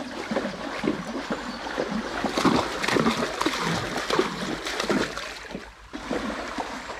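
A pony wading through river water, its legs churning up quick, irregular splashes, with a short lull about five and a half seconds in.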